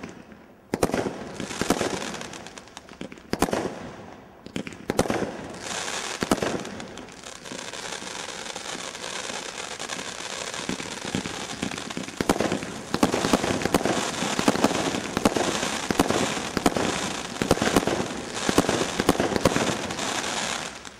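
Stealth Fireworks Seismic Blast 49-shot firework cake going off, loud with crackles. Single shell bursts come a second or two apart, then a long stretch of dense crackling builds into a rapid finale of many bursts that stops suddenly near the end.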